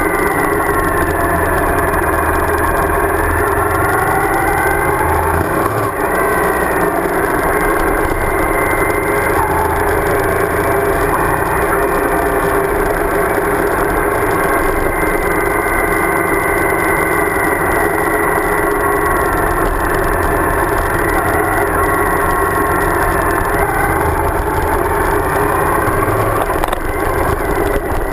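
Suzuki DL1000 V-Strom's V-twin engine running under way, its note rising and falling slightly with the throttle, over wind and road noise.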